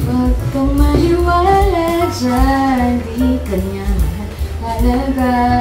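Background music: a sung melody over a steady bass line.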